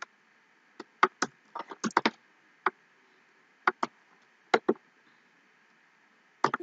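Scattered sharp clicks from a computer mouse and keyboard, about a dozen over six seconds, many in quick pairs, over a faint steady hiss.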